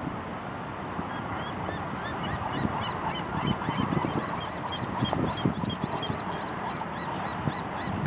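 A flock of gulls calling, many short high-pitched cries overlapping at a rapid pace from about a second in, over a low steady rumble.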